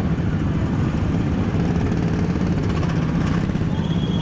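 Small petrol engine of a Tomorrowland Speedway ride car running steadily at low revs as the car creeps forward in line, with other cars' engines around it.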